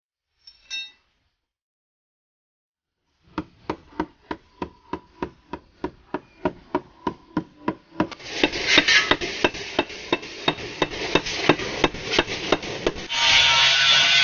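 Hammer blows on a car body panel during dent repair, evenly paced at about three strikes a second with a slight ring. A steady machine noise joins partway through and grows louder near the end.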